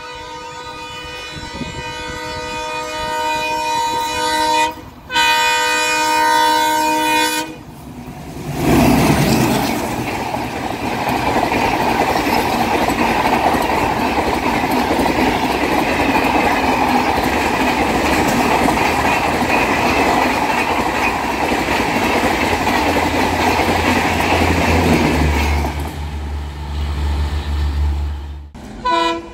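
ALCo WDM-3D diesel locomotive's horn sounding two long blasts, the second after a short break. Then a train passes at about 120 km/h: a steady loud rush of coaches and wheels on the rails, giving way near the end to a low drone.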